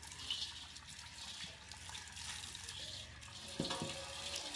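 Water running from a tank's tap into a stainless steel bowl as the bowl is rinsed, a steady splashing hiss. About three and a half seconds in there is a knock followed by a short ringing tone.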